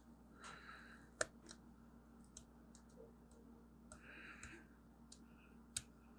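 Faint scraping and small clicks of a thin metal pick working at softened glue residue on the metal shield inside an original iPhone, with short scraping strokes and a sharper click about a second in and another near the end.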